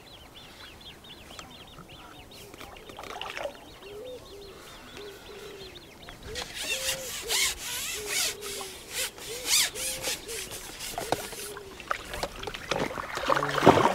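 Hooked carp splashing at the surface of a pond as it is played in. The splashes start about halfway through and come irregularly, many in quick succession. Small birds chirp faintly early on.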